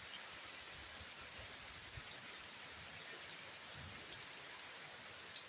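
Heavy rain falling, a steady even hiss. A single short high-pitched sound cuts in near the end.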